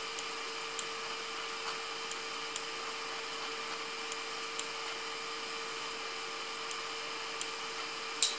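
Short, sharp computer-mouse clicks at irregular intervals, about one a second, over a steady electrical hum and hiss.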